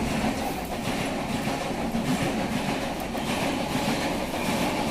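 Passenger train coaches rushing past close by at speed, a steady rumble with the wheels clattering over the rail joints.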